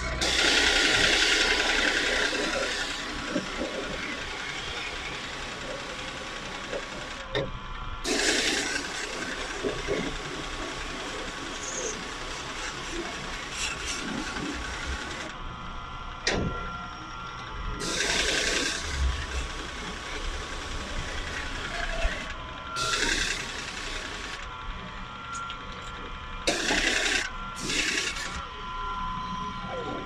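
Pressure washer spraying water in repeated hissing bursts, the first about three seconds long and four shorter ones later, over a steady mechanical whine, as window air-conditioner parts are hosed clean.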